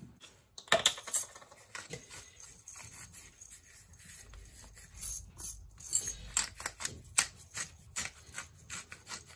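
Salt and pepper being put onto a raw steak: a run of irregular light clicks and rattles from the seasoning containers, busier in the second half.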